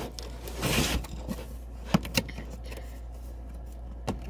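Handling of a cardboard box and its packaging: a short rustle just under a second in, then a few light knocks and clicks.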